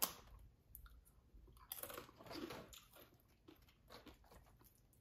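Crisp tortilla chip crunching: a sharp crack right at the start, then a longer crunch about two seconds in, with a few faint clicks between.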